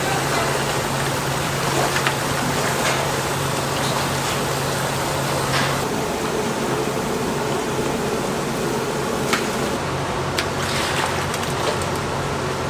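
Broth sloshing and swirling in a large steel cooking kettle, over a steady low hum of kitchen equipment that drops out briefly partway through. A few sharp metal clinks sound along the way.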